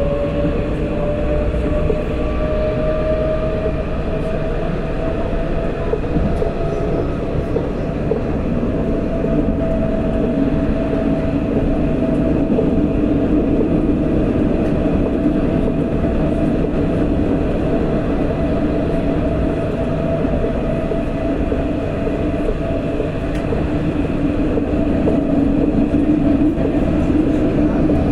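Alstom Citadis 402 tram running, heard from inside the car: a steady rumble of wheels on rail with the electric traction drive's whine. The whine rises in pitch over the first several seconds as the tram gathers speed, then holds steady.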